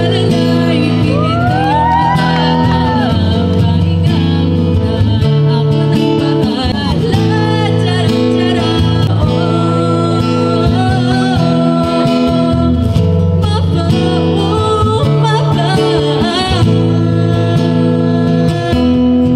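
A woman singing a song live to an acoustic guitar, with sustained chords underneath and the voice rising and falling above them.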